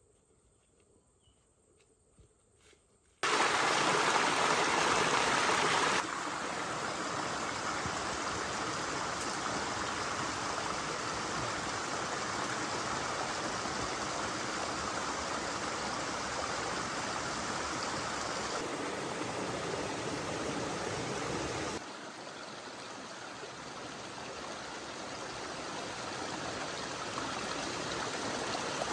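A small forest stream splashing over rocks in a little cascade, a steady rush of water. It cuts in suddenly about three seconds in after a faint, near-quiet start, and drops a little in level about two-thirds of the way through.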